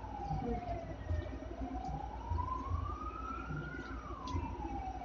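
A siren wailing slowly, its pitch falling, then rising for about two and a half seconds to a peak near the end, then falling again.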